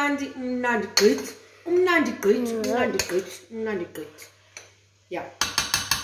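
Metal spoon clinking and scraping against a stainless steel pot as cooked pasta shells are tossed, with a quick run of sharp clinks near the end.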